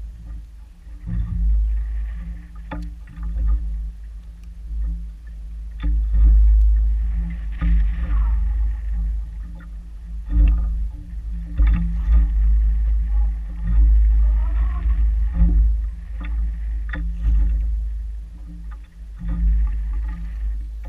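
Wind buffeting the microphone of a chest-mounted action camera on a kayak, a low rumble that rises and falls in gusts, while choppy water slaps and knocks against the kayak's hull at irregular moments.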